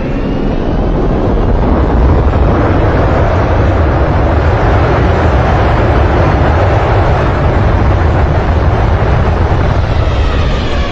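Loud, steady roar of an airliner's engines with a heavy low rumble, swelling over the first couple of seconds and then holding.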